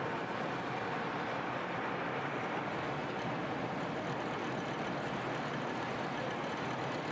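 Steady, even machine noise from a stainless steel spoon processing machine running.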